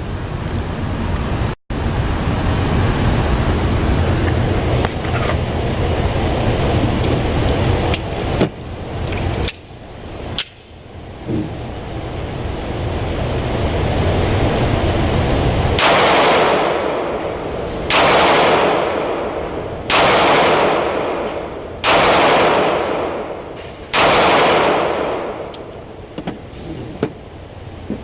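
Five shots from a Springfield XD-S .45 ACP pistol, fired at a steady pace of about one every two seconds, each followed by a long echo. They come in the second half, after a steady rushing noise.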